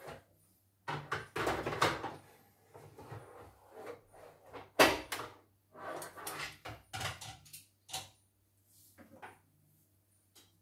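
Irregular knocks, clatter and rustling as a Singer embroidery machine and its plastic embroidery unit are handled and set down on a workbench, with the loudest knock about halfway through.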